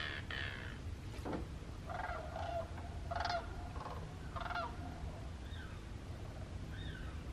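Wild birds calling in a marsh. A few rapid, stuttering calls come between about two and five seconds in, then fainter short notes rise and fall and repeat several times near the end.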